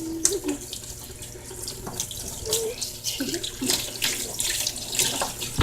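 Water running from a sink tap as a small dog is rinsed in the sink, with irregular splashing.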